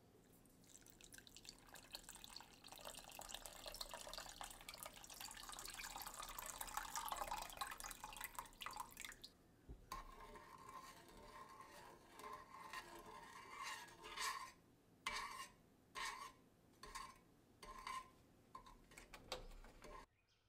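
Faint kitchen sounds of liquid ingredients being poured into a mixing bowl for several seconds. After a short pause comes a run of short wet mixing strokes, about two a second in the second half, stopping abruptly near the end.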